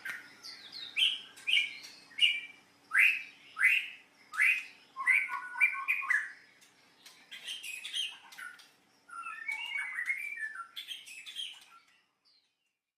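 White-rumped shama singing a varied song of loud, clear whistled phrases, sweeping notes and quick chattering runs. It stops suddenly about a second before the end.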